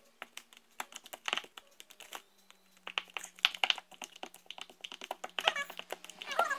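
Homemade slime being squeezed and kneaded by hand, giving rapid, irregular wet clicks and pops, thickest about halfway through.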